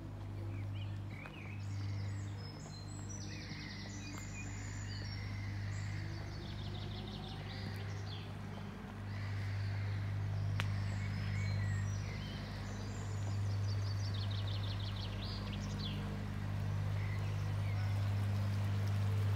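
Songbirds singing, with rapid trilled phrases a few seconds in and again about two thirds of the way through, over a steady low mechanical hum that swells and fades.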